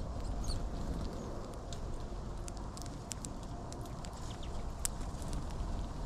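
Finches pecking at and cracking sunflower seeds among the husks right beside the microphone: scattered short, sharp clicks over a low rumble of wind on the microphone.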